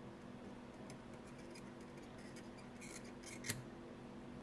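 Faint metallic ticks and clicks of fine tweezers and a soldering iron tip working at a circuit board while desoldering a burnt tantalum capacitor, with a cluster of clicks near the end and one sharp click about three and a half seconds in. A low steady hum runs underneath.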